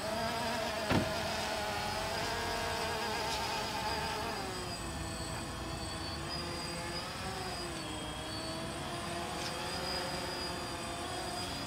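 Small quadcopter drone hovering, its propellers making a steady buzz of several tones whose pitch wavers and drops a little about four seconds in. A short sharp click about a second in.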